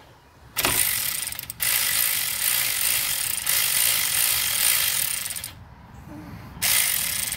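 AC Delco cordless electric ratchet running in three bursts, a short one, a long one of about four seconds, and a short one near the end, as it loosens the brake hose bolt on a brake caliper.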